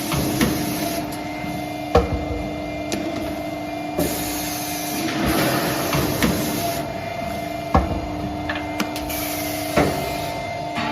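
CNC double-end pipe chamfering machine running: a steady motor hum with sharp metallic knocks every two seconds or so as pieces are gripped, fed and clamped, and a stretch of hissing noise in the middle of the cycle.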